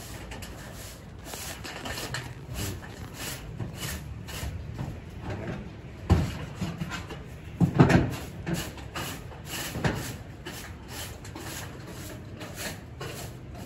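Leaves and twigs of a starfruit tree rustling and brushing against a handheld phone as it is pushed through the branches, with handling noise and two louder bumps about six and eight seconds in.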